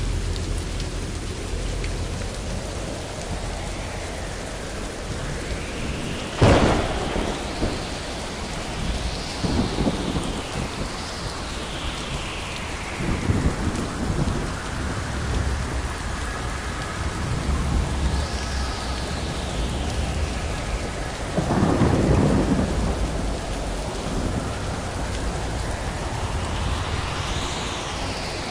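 Thunderstorm: steady rain with rolling thunder, a sharp crack of thunder about six seconds in, and several more rumbles after it, the longest near the twenty-two second mark.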